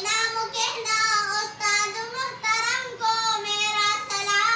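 A girl's voice singing an Urdu nazm, a poem, in phrases of long held notes that glide a little, with short breaths between the phrases.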